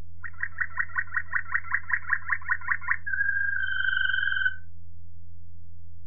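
Waterslager (Malinois) canary singing: a rapid run of repeated pulsing notes, about five or six a second, then a steady held whistle-like note for about a second and a half that stops sharply halfway through.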